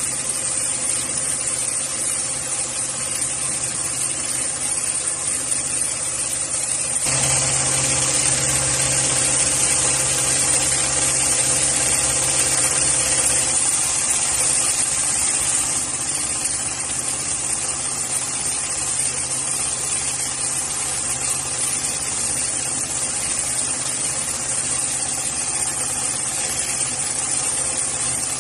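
Automatic industrial sewing machine running steadily as it stitches polyester lifting-sling webbing, a continuous mechanical hum that grows louder about seven seconds in.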